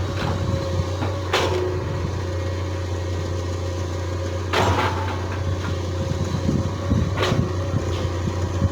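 Excavator engine running steadily with a low drone, with three sharp clanks a few seconds apart from the working machine.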